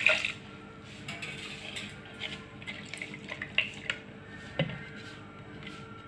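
Light clinks and taps of stainless-steel kitchenware around a mixer-grinder jar, with a short knock about halfway through and a faint steady hum underneath.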